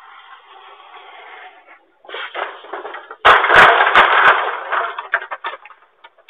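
Car sliding off a snowy street and smashing into a wooden fence: noise builds from about two seconds in, then a loud crash of several heavy impacts about halfway through, followed by cracking and rattling of wood debris that dies away.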